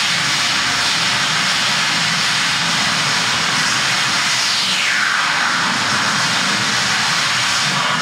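Loud, steady electronic noise like a hiss, with a falling swoosh about four to five seconds in and another beginning near the end.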